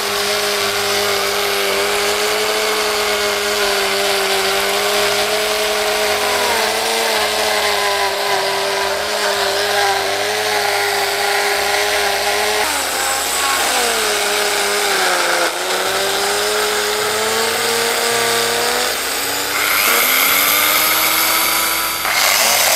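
Handheld power tool motor running loud and steady, probably while working wood. Its pitch sags and recovers twice as the tool is loaded, once about a third of the way in and again over a few seconds past the middle. Near the end the sound turns brighter and hissier.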